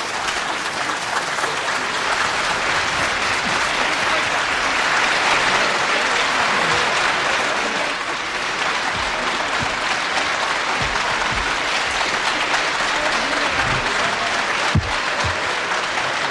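Audience applauding, a dense, steady clapping, with a few low thumps in the second half.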